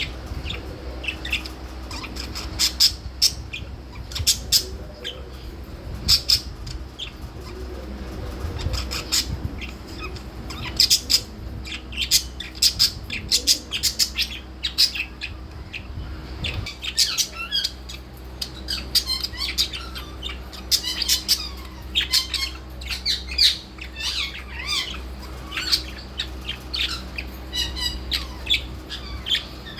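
Pet budgerigar chirping and chattering, a rapid string of short high calls with occasional louder squawks, over a steady low hum.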